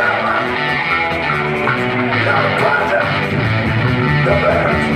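Live rock band playing: electric guitars over a drum kit, with a steady cymbal beat.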